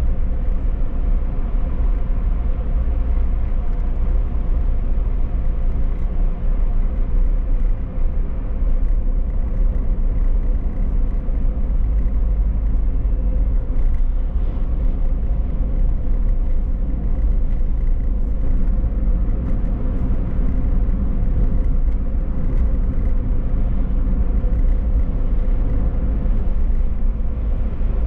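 A car being driven on city streets: a steady low rumble of engine and tyre noise with a faint hum.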